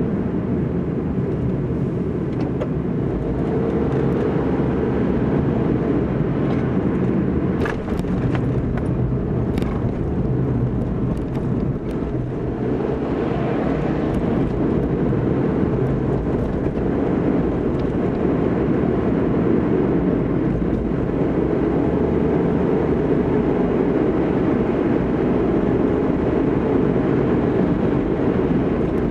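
Steady road noise of a car driving in city traffic: a low, even rumble of engine and tyres, with a few faint clicks about eight to ten seconds in.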